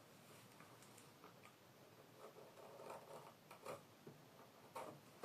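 Near silence with a few faint, short ticks and light scrapes of hand work on a leather lace, as its thinned end is fitted into a lace pull.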